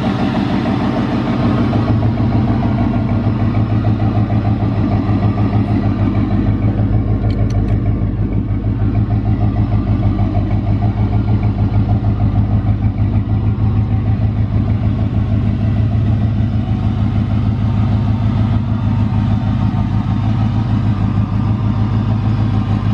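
A box Chevy's engine running steadily with an even low pulsing, no revving.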